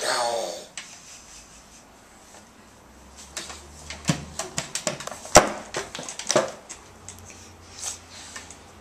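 A toddler's short vocal squeal, falling in pitch, at the very start. Then, from about three seconds in, a run of light knocks and clicks from close handling, the sharpest a little past the middle.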